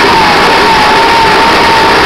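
An engine running, very loud and close, with a steady high whine over its noise.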